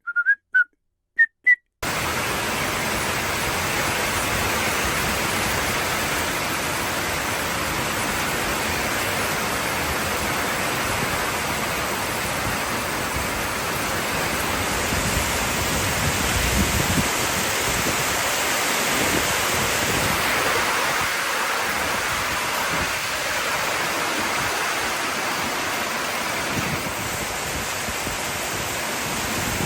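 Heavy rain falling steadily, a dense even hiss that starts abruptly about two seconds in and swells slightly midway.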